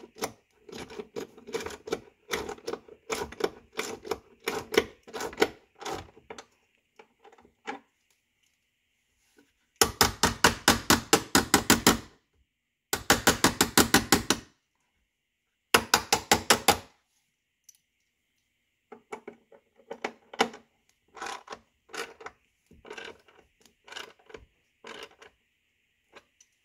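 Hand ratchet clicking as it turns a door striker bolt into a Lincoln Town Car's door pillar: three quick runs of rapid, even clicks in the middle, with slower, irregular clicks before and after.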